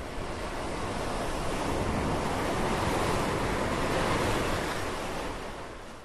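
Ocean surf washing, a steady rush of waves that swells in the middle and fades out near the end.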